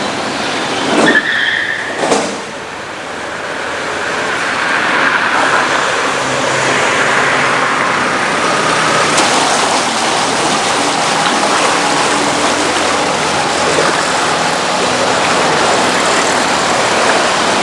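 A motor vehicle running, with a loud steady rushing noise like flowing floodwater over it; two brief knocks about one and two seconds in.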